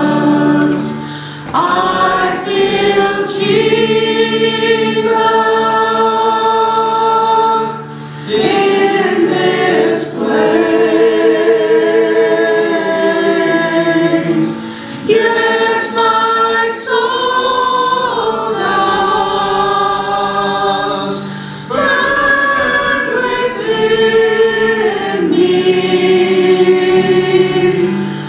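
Church praise team singing a slow worship song together, voices held in long notes with vibrato and sung in phrases separated by short breaks.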